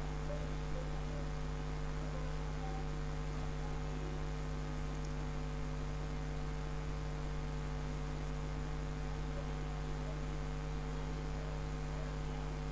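Steady electrical mains hum with a low buzz running unchanged, picked up in the recording chain.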